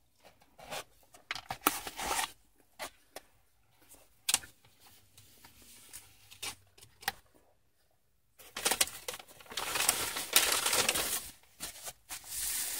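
Crinkling and rustling of a cardboard sandwich box and paper wrapper, with biting and chewing into a crispy chicken sandwich. The sounds are irregular crackles for the first few seconds, near quiet in the middle, then denser and louder rustling over the last four seconds.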